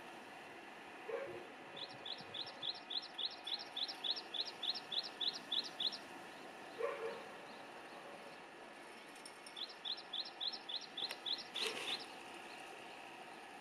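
A small bird singing: a rapid run of repeated high, chirping notes, about five a second, given twice with a pause between. Two short, lower calls sound once near the start and once mid-way, and there is one sharp click near the end.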